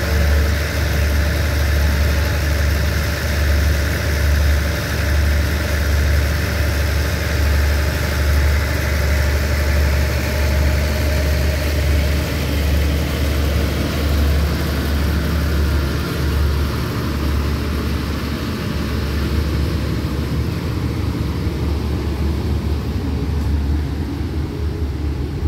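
Passenger train pulling slowly away from the platform, with a steady low running hum from its coaches and machinery that thins a little as the last coach draws away.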